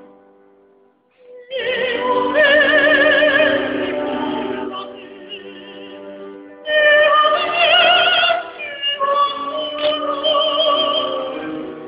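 Operatic singing in a high voice with wide vibrato over instrumental accompaniment. It comes in about a second and a half in, and the voice pauses briefly in the middle while the accompaniment carries on.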